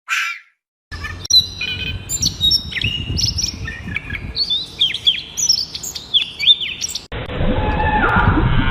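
Songbird singing a rapid string of chirps and sharp down-sweeping whistled notes over a low background rumble. About seven seconds in, it cuts abruptly to a different, steadier animal call with a stack of harmonics, preceded at the very start by a brief breathy burst.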